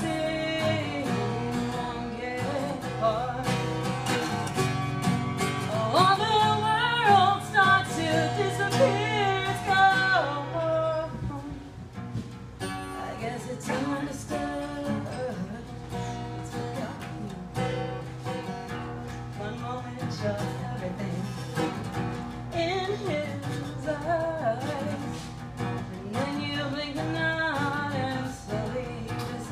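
A woman singing solo with her own acoustic guitar accompaniment. Her voice is loudest and highest around six to ten seconds in, drops away briefly for a moment of guitar alone, then comes back.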